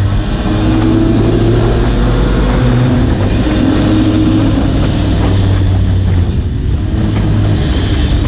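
Two-stroke Lambretta racing scooter engine running steadily at racing speed, heard from an onboard camera, with wind rushing over the microphone and other scooters' engines mixed in.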